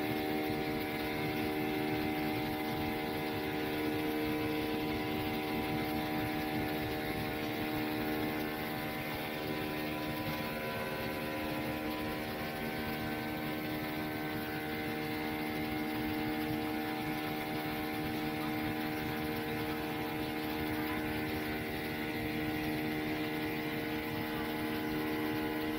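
An airliner's jet engines heard from inside the cabin during the climb after takeoff: a steady drone with several constant tones over a rushing hiss.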